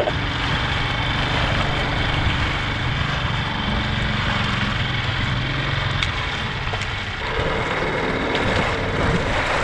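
Small outboard motor on an inflatable dinghy running steadily under way, with wind rushing over the microphone.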